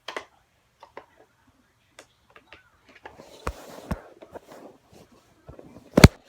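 Plastic Nerf blaster being handled: scattered small clicks and rattles, a stretch of rustling with two sharp clicks about three and a half seconds in, and one loud sharp knock about six seconds in.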